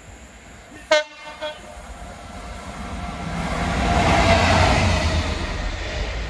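Class 66 diesel locomotive sounding two short horn blasts about a second in, the first the louder, then passing close by, its engine and wheels swelling to loudest around four seconds in and easing off.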